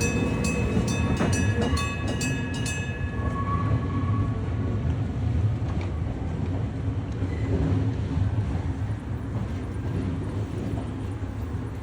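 Electric-bell level-crossing alarm clanging in a steady rhythm, stopping about three seconds in. Under it, an ex-Tokyo Metro 03 series electric train rumbles over the rails, easing a little toward the end.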